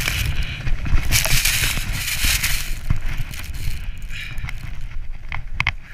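Snowboard sliding and scraping over choppy snow at speed, a loud hiss over a heavy rumble of wind on the camera's microphone; the scraping is strongest in the first half and eases off after about four seconds.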